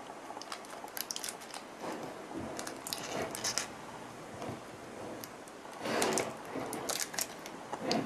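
Small handling noises from a rebuilt lithium-ion battery pack with plastic cell holders being moved about: scattered light clicks and taps, with a louder rustle about six seconds in.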